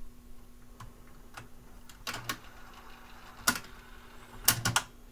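Saba CD355 cassette deck's tape transport mechanism clicking and clacking as it is worked: a few light clicks, a sharp clack about three and a half seconds in, and a quick run of three near the end, over a faint steady hum.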